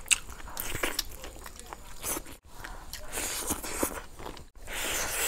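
Close-miked eating: biting into and chewing an air-fried chicken wing, a run of irregular crunches, clicks and mouth noises. The sound cuts out briefly twice.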